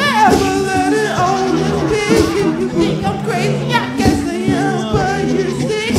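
A male lead singer and a group of backing singers singing together into microphones, several voices holding wavering lines at once.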